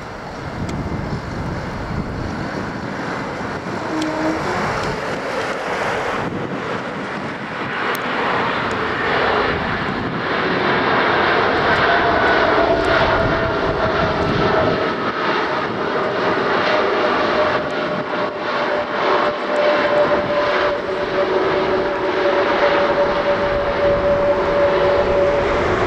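Airbus A320neo's Pratt & Whitney PW1100G geared turbofan engines during the landing roll. A steady jet rumble grows louder about ten seconds in, with a whine that slides slowly down in pitch.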